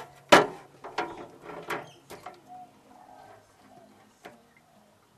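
Plastic cutting board knocking and sliding on a stainless steel sink bench as it is lifted and turned: one sharp clack about a third of a second in, the loudest, then a few lighter knocks over the next two seconds and one more near the end.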